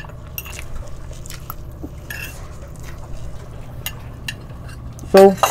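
Scattered light clinks and taps of a plate and its contents being handled while eating, over a steady low hum. A short spoken word comes near the end.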